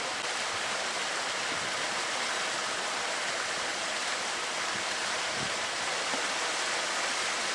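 Steady, even hiss of water noise with no breaks or single events.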